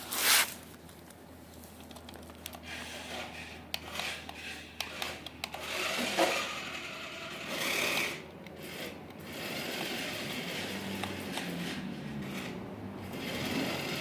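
Small electric motor of a toy remote-control car whirring in spurts as the car is driven, rising and falling with the throttle, with a sharp knock just after the start.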